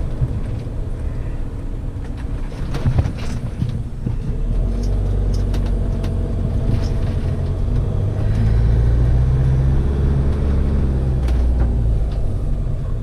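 Laika Kreos 7009 motorhome's diesel engine and road noise heard from inside the cab at low speed. The engine note steps up about four seconds in and again about eight seconds in as it pulls harder, with a few knocks and rattles early on.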